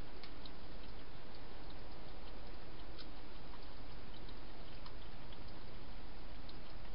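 A hedgehog eating dry food inside a plastic feeding station: faint, irregular crunching clicks, a few a second, over a steady hiss.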